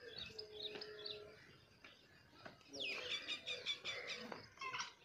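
Small birds chirping and twittering in quick repeated notes, sparse at first and busier from about halfway through. A faint steady tone sits underneath for the first second or so.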